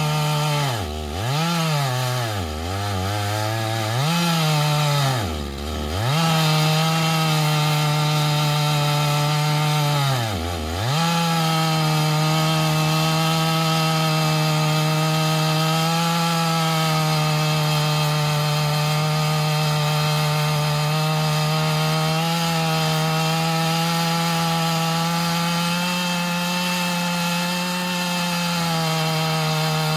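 Chainsaw mounted in a chainsaw mill running at full throttle, ripping lengthwise through a large log. The engine revs dip sharply and recover about four times in the first ten seconds, then hold steady through the cut.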